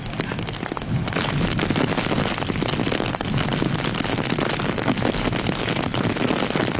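Strong typhoon wind gusting and buffeting the microphone, a dense rushing noise full of crackles that thickens about a second in.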